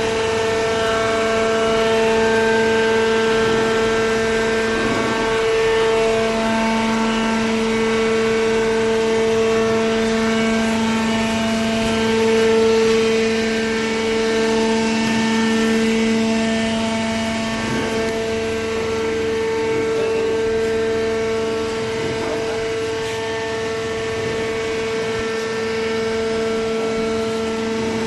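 Cardboard baler with feed conveyor running: a steady machine hum with a strong, pitched drone whose lower tone swells and fades over several seconds.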